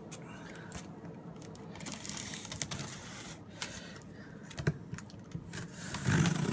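Cardboard packaging being handled and opened: scattered light clicks and taps, getting louder with a denser rustle and scrape of cardboard near the end.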